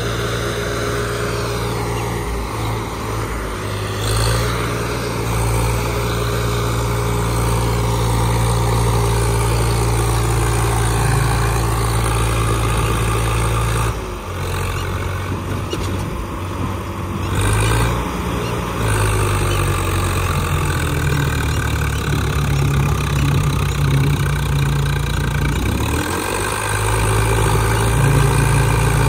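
Tractor diesel engines running hard under load. The engine note shifts abruptly a few times, about halfway through and again near the end.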